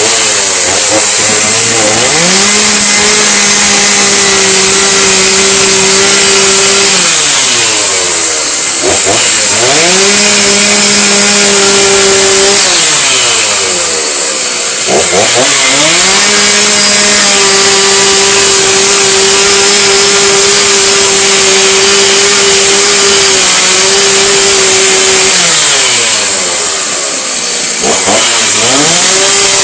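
Chainsaw engine run loudly up to full throttle, held steady for several seconds, then let back down to idle, three times over.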